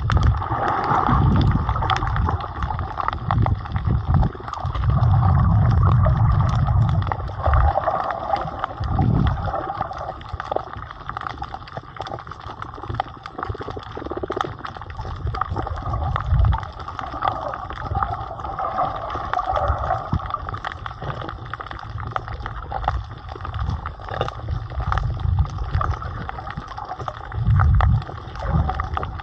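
Underwater sound of water moving around a snorkeler's camera: muffled gurgling and sloshing, with low rushing surges that come and go and many faint clicks throughout.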